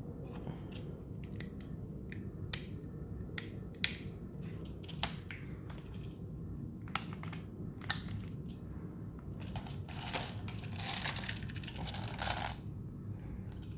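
Sharp, irregular metallic clicks and clacks from handling a King Arms Troy M4 airsoft AEG, about seven in all, then a few seconds of rattling and rustling near the end.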